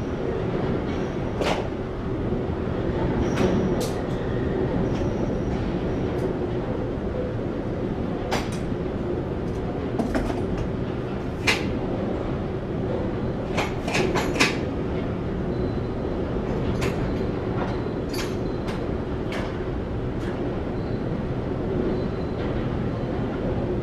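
An engine running steadily with a low hum, with scattered sharp metallic clicks and knocks from loading work at the trailer, several in quick succession about halfway through.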